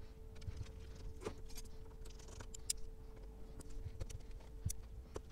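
Small screwdriver backing screws out of a CD changer's sheet-metal top plate: scattered faint clicks and ticks of the bit and the loosening screws, over a faint steady hum.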